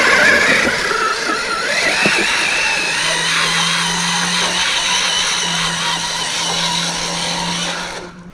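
Losi Super Rock Rey RC truck's brushless electric motor whining under throttle. The whine climbs in pitch over the first few seconds, then holds high and wavering before cutting off sharply near the end.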